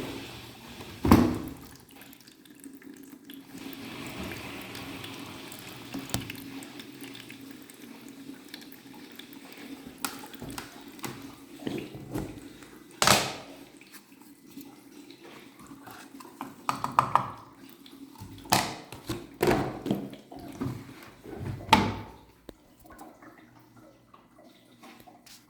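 Samsung washing machine running a wash with water sloshing over a steady low hum, broken by several loud thuds: one about a second in, one around the middle, and a cluster near the end.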